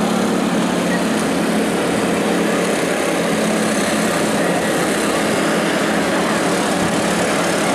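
Steady drone of engines running on a motorcycle race grid, holding one pitch with no revving, with voices mixed in.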